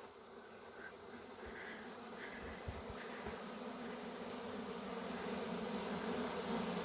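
A swarm of honey bees in flight, humming steadily and growing louder, as if the swarm may be coming down to move into the hive box.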